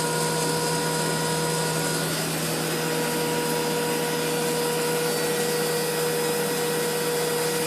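Webasto HL90 diesel air heater running steadily, its blower fan giving a constant whine over the rush of air and burner. The flame is established and the glow plug has switched off, so it is running on the fan alone, still at its start-up speed.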